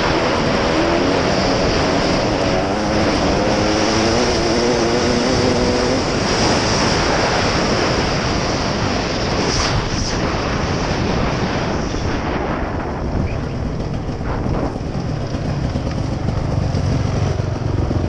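Dirt bike engine running under way over a rough trail, with heavy wind rush on the bike-mounted camera's microphone. The engine's note is clear for the first few seconds, then mostly buried under wind and rattle before it comes back lower near the end.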